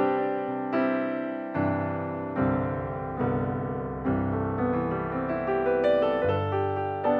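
Background piano music: slow single notes and chords, each struck and left to ring and fade, about one a second.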